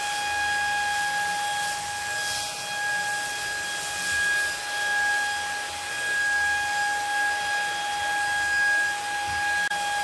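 Handheld cordless wet-dry vacuum cleaner running steadily: a high, steady motor whine over a rushing hiss of air, swelling and dipping a little in loudness.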